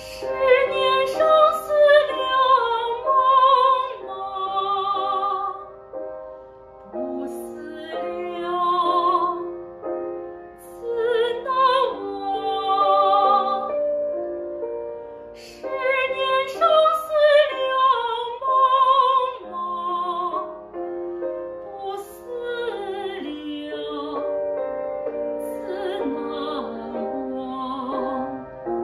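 Female classical singer performing a Chinese art song with piano accompaniment, holding notes with a wide vibrato in phrases separated by brief pauses.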